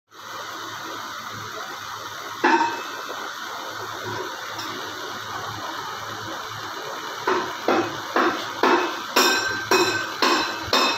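Steady hiss with a single sharp knock about two and a half seconds in, then, from about seven seconds, regular knocks with a short metallic ring at roughly two a second, like hammering on metal.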